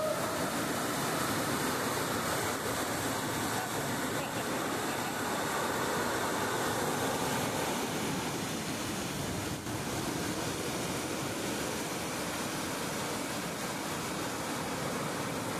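Heavy rain pouring down steadily, splashing on concrete, with runoff streaming off a corrugated metal sheet.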